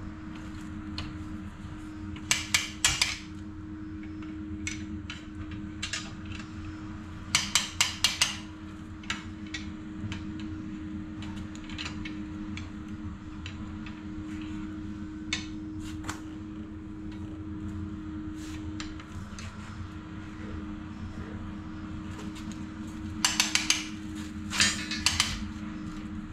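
Metal tools knocking and tapping on coil-over shocks and coil springs during spring-compressor work. Three short bursts of quick, sharp taps come a couple of seconds in, about eight seconds in and near the end, with a few single ticks between, over a steady background hum.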